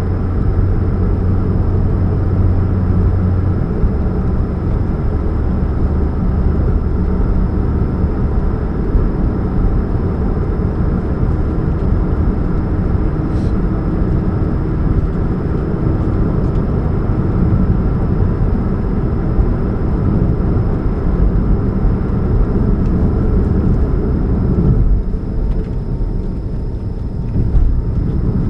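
2013 Chevrolet Spark running with a steady low hum and rumble, the hum strongest in the first few seconds. The owner puts the humming down to a leak at the catalytic converter.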